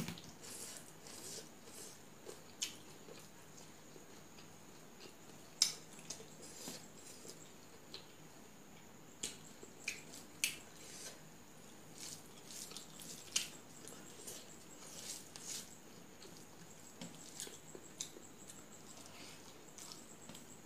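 Eating sounds from a meal eaten by hand off a steel plate: chewing and mouth clicks, with fingers working rice on the plate, heard as scattered, irregular soft clicks and crackles.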